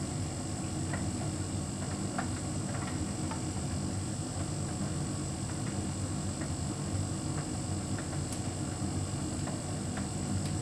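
Hotpoint heat pump tumble dryer running: a steady low hum with faint, scattered light clicks.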